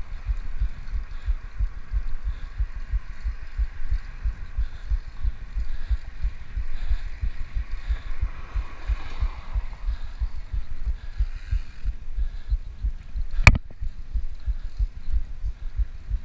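Wind buffeting an action camera's microphone on a moving bicycle: a dense, uneven low rumble of thumps with a faint hiss above it. About thirteen and a half seconds in there is one sharp click.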